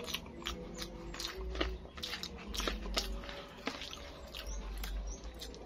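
A person chewing a mouthful of rice and tofu with the mouth working wetly: irregular lip smacks and clicks, several a second, with low thumps beneath.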